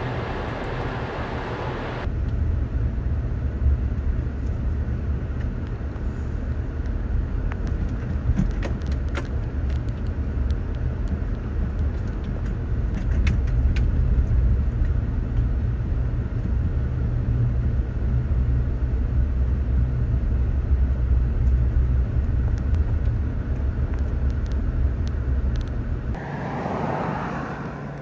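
Car driving along, a steady low road and engine rumble, with a short wash of higher noise near the end.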